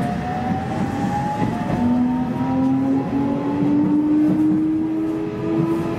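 Electric train's traction motors whining and rising steadily in pitch as it accelerates, over the rumble of the running gear, heard from inside the car.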